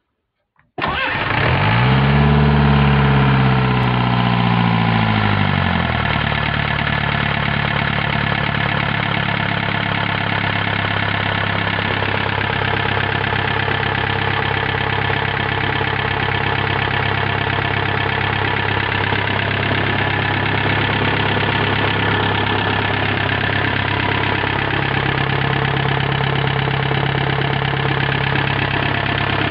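Mercedes-Benz OM314 four-cylinder diesel engine starting on the first push of the starter after more than twenty years standing, catching almost at once about a second in. Its revs rise and fall for a few seconds, then it settles into a steady idle.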